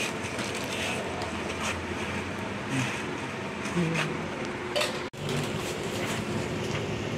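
Steady background rumble with a few light handling clicks and taps, which drops out for an instant about five seconds in.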